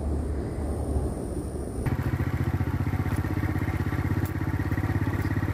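Motorcycle engine running at low road speed with a rapid, even firing beat. About two seconds in the sound changes abruptly to a steadier, fuller engine note.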